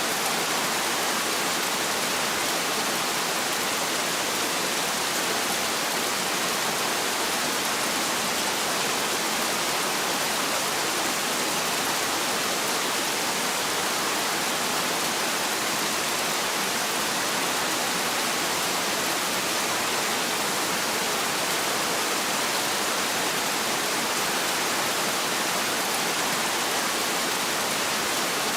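Heavy rain falling steadily, an even, unbroken hiss with no thunder.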